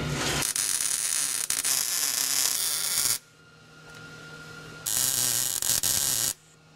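Two bursts of arc welding, a steady crackling hiss. The first lasts about three seconds and the second about a second and a half, with a faint low hum between them.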